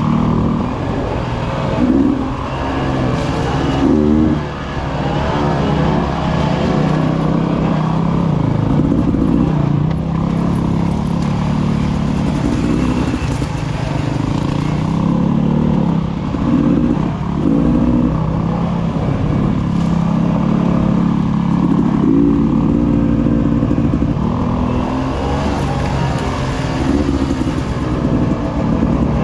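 A Beta 300RR two-stroke dirt bike engine running under constantly changing throttle, its note rising and falling every second or two as the rider works up a rough trail.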